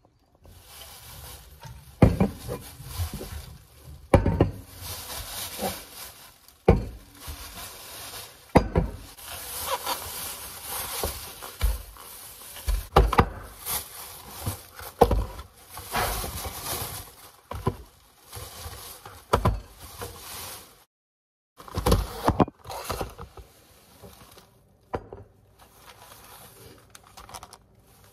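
Thin plastic grocery bags rustling and crinkling, with repeated knocks as boxes, jars and packages are set down on a granite countertop. The sound breaks off for about a second about two-thirds of the way through.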